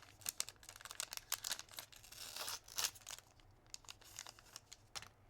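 The wrapper of a trading card pack being torn open and crinkled by hand: a quick run of crackles that thins to a few scattered rustles after about three seconds.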